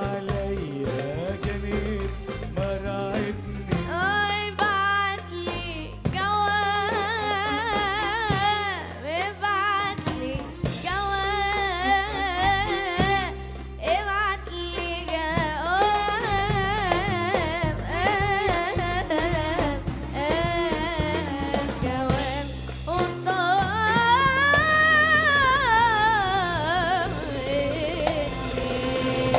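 Arabic song with a heavily ornamented melody line that wavers and bends in long runs, over percussion and a steady bass.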